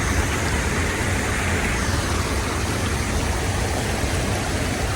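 Steady rushing of river water and a waterfall, an even noise with a deep rumble underneath.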